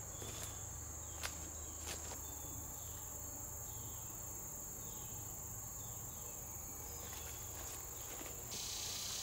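Insects buzzing steadily on one high pitch, with a few faint clicks in the first two seconds. Near the end the buzz gives way to a louder, broader hiss.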